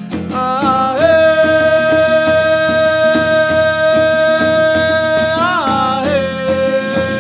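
Song with strummed acoustic guitar and a voice holding one long note, which bends down onto a lower held note about five and a half seconds in.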